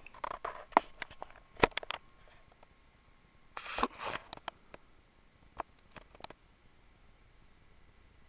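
Hands handling a small plastic GPS unit: scattered clicks, taps and rustles as it is turned over, with a longer rustle about three and a half seconds in and a few more clicks a couple of seconds later.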